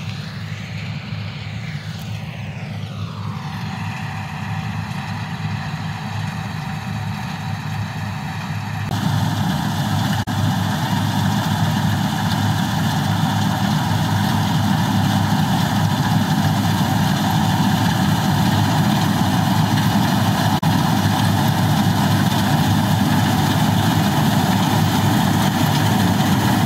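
Combine harvester running steadily while it cuts and threshes a soybean crop: a continuous engine and machinery drone that steps up louder about nine seconds in.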